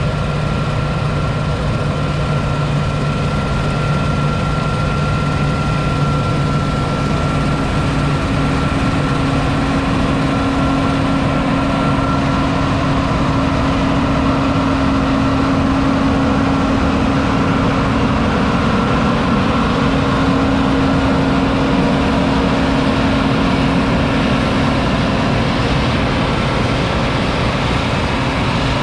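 2005 John Deere 9780i CTS combine harvester's 8.1-litre six-cylinder diesel engine running steadily, with a steady hum whose pitch changes about eight seconds in and a high whine that fades out partway through.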